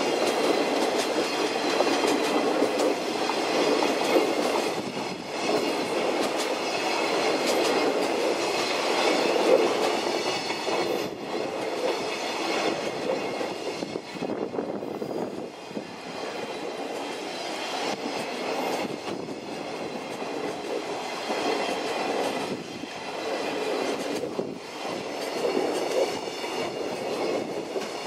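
Long freight train of loaded container flatcars rolling past: a steady rumble of wheels on rail with scattered clicks over the rail joints and a faint high ringing above it. It eases somewhat in the second half as the end of the train nears.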